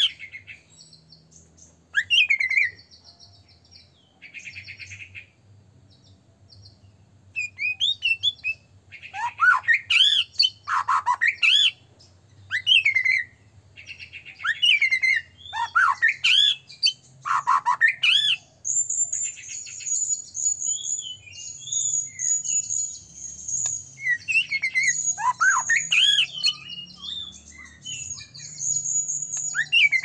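White-rumped shama (murai batu) in full song: bursts of varied, swooping whistled phrases and rapid chatters with short pauses between them. In the second half a high, fast repeated note runs without a break beneath the phrases.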